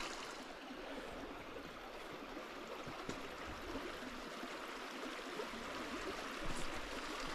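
Small creek flowing steadily, an even rush of water.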